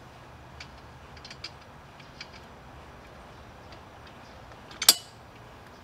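Scattered clicks and taps of a wrench working the last bolt on a poly dump cart during assembly, with one sharp, loud click near the end.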